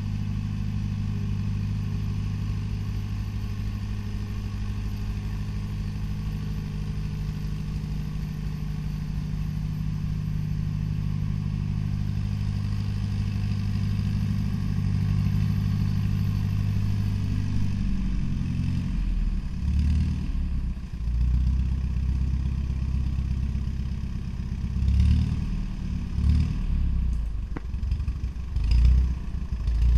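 Fiat 312 R farm tractor engine running at a steady speed, then for the last third its note rises and falls in uneven surges as the engine speed changes.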